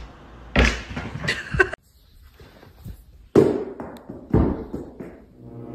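Sharp thumps and knocks, like impacts on a hard floor, in two groups with a short quiet gap between them. A pitched, sustained tone swells in near the end.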